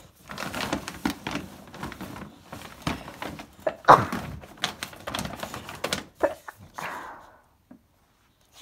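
Paper gift bag crinkling and rustling as a bulldog noses into it after the balloons inside, in irregular crackles and rubs. It stops about seven and a half seconds in.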